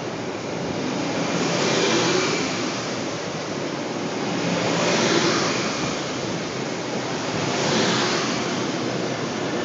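Metro-North electric multiple-unit commuter train passing close by: a steady rush of wheel and rail noise that swells about every three seconds as each car goes past.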